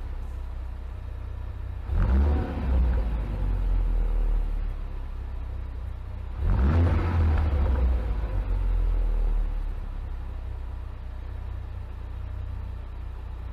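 2017 Ford Focus ST's 2.0-litre turbocharged four-cylinder on its stock exhaust, idling and revved twice, about two seconds in and again about six and a half seconds in; each rev rises and falls back to idle.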